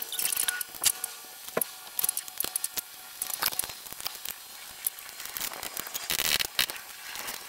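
Irregular clicks, knocks and rustles of hand tools being picked up and moved about on a concrete step, with no power tool running.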